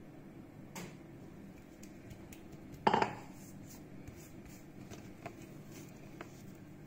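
Hands quietly pressing and folding soft bread dough on a countertop, with a single sharp knock about three seconds in as a plastic measuring jug is set down on the counter, and a few light clicks later.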